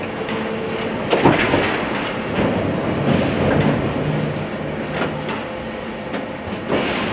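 Industrial machinery running steadily, with sharp metallic knocks about a second in, around five seconds and near the end.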